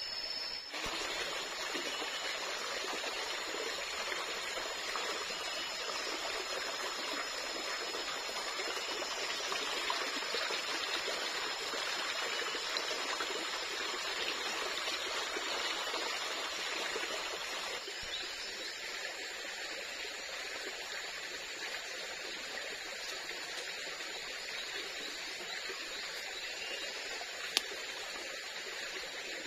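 Steady rushing and trickling of a forest stream, slightly quieter after about 18 seconds. A single sharp click near the end.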